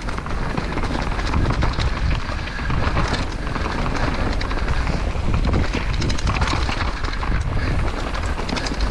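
Downhill mountain bike descending a dirt trail strewn with dry leaves, heard from a helmet camera: a steady low rumble of wind and tyres with frequent rattling clicks from the bike.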